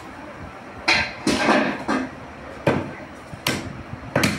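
Butchers' cleavers chopping through beef ribs on wooden log chopping blocks: a string of sharp, irregular chops, roughly one every half second to second, with two blows close together near the end.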